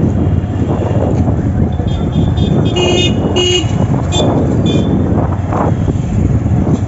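Horns beeping in a busy street: two short beeps about three seconds in, then two shorter, higher beeps from another horn about a second later. Underneath, a motor vehicle engine runs steadily amid street traffic noise.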